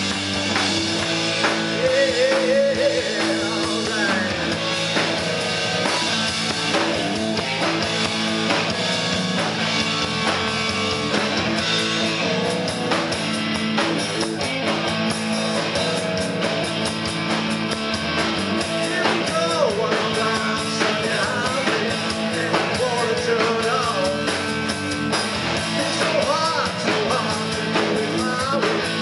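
Live rock band playing amplified, with electric guitar, bass guitar and drum kit, heard from the audience. The music runs at a steady level.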